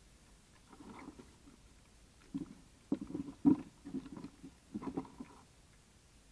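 Two European badgers squabbling over food at close range: a run of short, low, rumbling grunts and scuffles, loudest about three and a half seconds in, as one shoves the other away from the peanuts.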